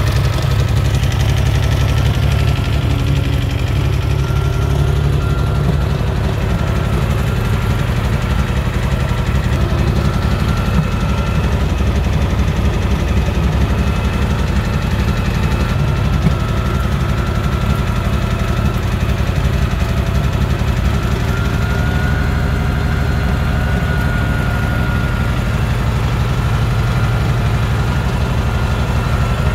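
Farmall 706 tractor engine idling steadily, with a low, even rumble.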